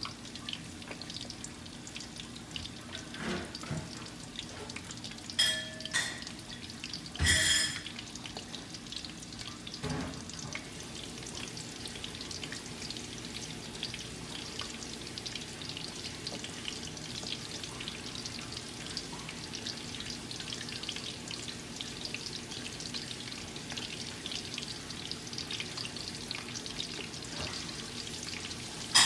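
Flour-breaded chicken drumsticks frying in a pan of cooking oil, with a steady sizzle and crackle. Two short, sharp, louder sounds stand out about five and seven seconds in.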